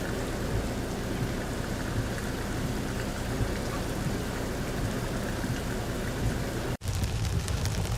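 Downpour of rain falling steadily, an even hiss of rain on the ground. It cuts out for an instant near the end and comes back with more low rumble.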